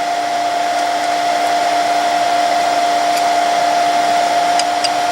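Electric air blower feeding a brake drum forge, running steadily with an even rush of air and a constant whine, with a couple of faint ticks near the end.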